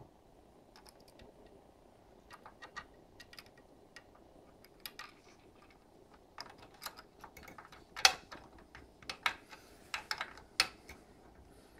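Small irregular clicks and ticks of a precision screwdriver turning screws into a metal mount, sparse at first, then quicker and louder in the second half.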